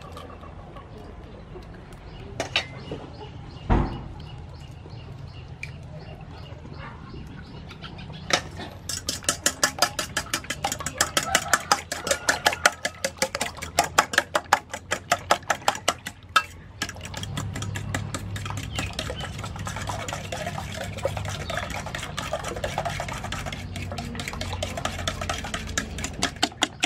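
Eggs cracked against a stainless steel pot, a few sharp knocks with a loud one about four seconds in. Then a fork beats the eggs against the pot in quick metallic clinks, about five strokes a second for some eight seconds, giving way to softer stirring.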